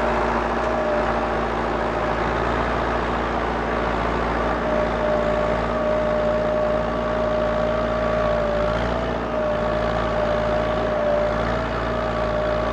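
Heavy-equipment diesel engine running steadily, with a constant low hum and a steady high-pitched whine over it.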